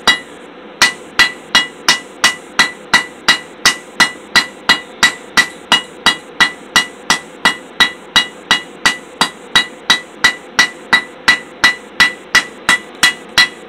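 Hand hammer striking red-hot quarter-inch round steel stock on an anvil in quick, even blows, about three a second, each blow with a bright metallic ring. The end of the bar is being drawn out square into a tapered point.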